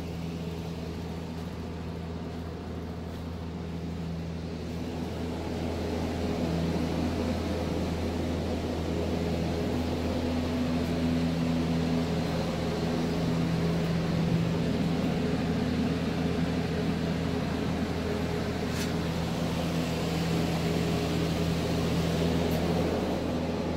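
Steady mechanical hum with a low drone and a few constant tones, growing a little louder about six seconds in.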